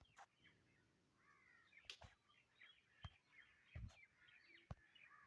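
Near silence, with faint bird chirps in the background and a few soft clicks.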